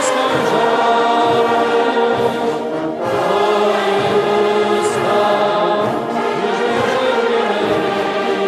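Choral music: a choir singing slow, long held chords.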